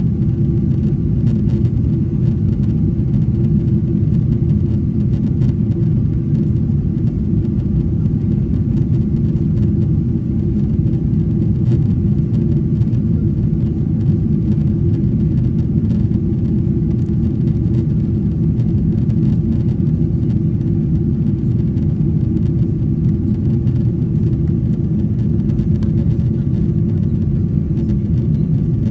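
Steady low drone inside the cabin of a Boeing 777-300ER in flight: the GE90-115B engines and airflow over the fuselage, heard from a window seat over the wing, with a few faint steady hums above the rumble.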